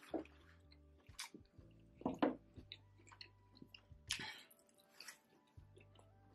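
Close-miked chewing and wet mouth sounds of someone eating a saucy seafood boil: scattered smacks and small clicks, with a brief louder noisy rustle about four seconds in.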